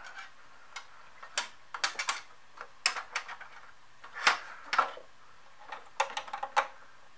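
Irregular light clicks and rustles of a flat ribbon cable being handled and pressed into place against a computer motherboard's chips and components. The loudest click comes a little past the middle.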